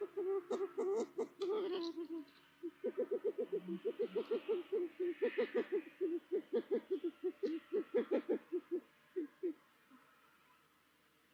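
Long-eared owl giving a rapid series of short, low hoots, about five a second, with a brief pause about two seconds in, then tailing off near the end.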